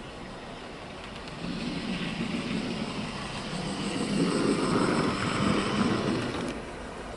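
Bachmann USA Dock Tank OO gauge model locomotive running past on the track: the motor's whirr and the wheels on the rails grow louder as it nears, are loudest about four to six seconds in, then fall away. It runs smoothly, with no jerking or rough running.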